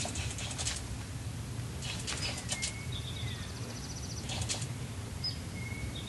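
Wild turkeys' wings flapping in three short bursts close by, with small birds chirping.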